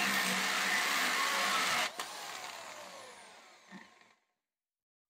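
DeWalt DWD520 corded hammer drill running a 1-inch masonry bit into a concrete block. About two seconds in it is switched off with a click, and the motor winds down, its whine falling in pitch and fading over about two seconds.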